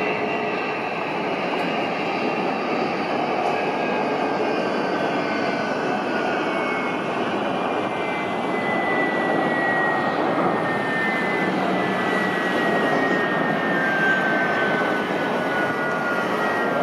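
Boeing 787 airliner's Rolls-Royce Trent 1000 turbofans running at takeoff power through the takeoff roll and lift-off: a steady loud jet noise with a high whine that slowly falls in pitch.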